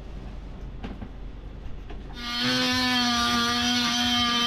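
A cordless power tool starts about two seconds in and runs with a steady, high whine as it cuts into the old faucet's metal.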